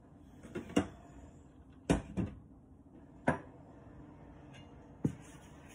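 Five sharp knocks and clinks as kitchen things are handled around a stainless steel mixing bowl: a spoon and a bottle picked up and set down against the bowl and worktop.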